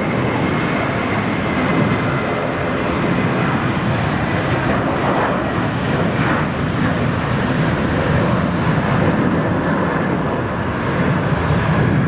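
Jet engines of a Boeing 737 airliner at takeoff power on its takeoff run, a steady loud rushing jet noise that swells slightly in the later seconds as the aircraft lifts off.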